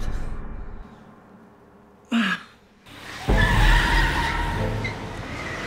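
A car speeds in, its engine rumbling and its tyres squealing and skidding, starting suddenly a little over three seconds in. Before it, music fades out at the start and a single short sharp sound comes about two seconds in.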